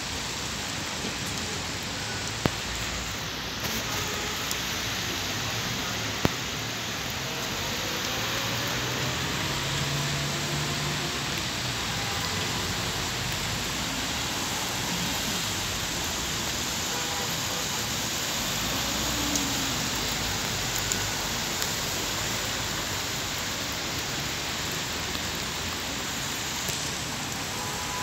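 Steady hiss of rain falling on wet pavement, with road traffic running faintly under it. Two short sharp clicks come in the first few seconds.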